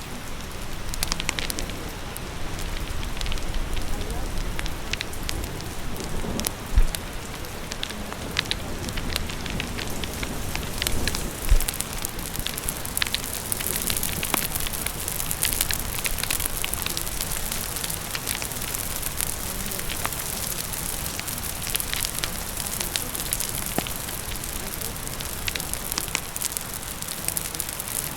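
Fire crackling with many small sharp pops over steady rain. Two brief low thumps, about seven and twelve seconds in, stand out above the rest.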